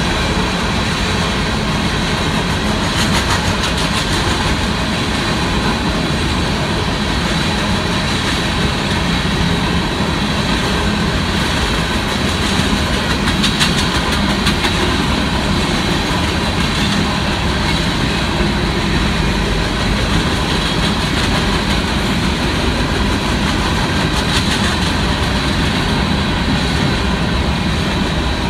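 Union Pacific freight train of covered hopper cars rolling steadily past, with a continuous rumble of steel wheels on rail and clusters of sharp clicks from the wheels now and then.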